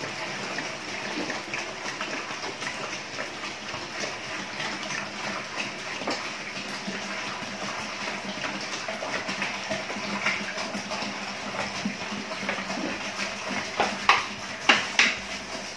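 Water poured steadily from a plastic bottle into a homemade overhead aquarium filter, splashing through the filter media and trickling down into the tank. A few sharp knocks come near the end.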